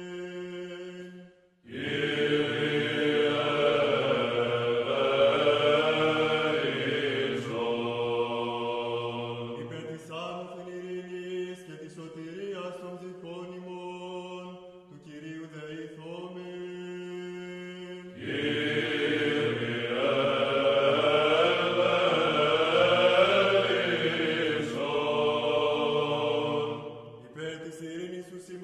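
Greek Orthodox Byzantine chant from the Divine Liturgy: voices singing in long, gliding phrases over a steady held drone note (the ison). Two fuller, louder sung passages, one beginning about two seconds in and one just past the middle, with a quieter line between them.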